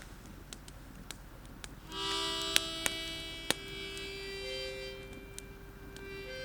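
Wood fire crackling with scattered sharp pops. About two seconds in, music of long held notes comes in and carries on under the pops.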